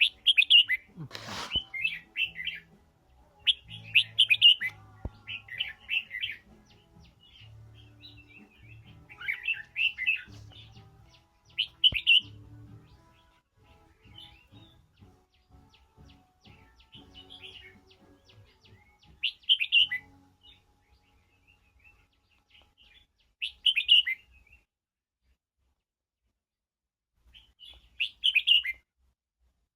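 Red-whiskered bulbul singing short bursts of chirping phrases, several in quick succession through the first dozen seconds, then a few more spaced several seconds apart. A faint low hum runs underneath for about the first twenty seconds.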